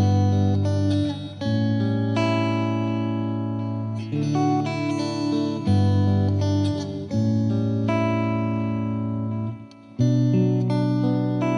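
Background music led by guitar, with held chords that change every second or two and a short drop-out near the end.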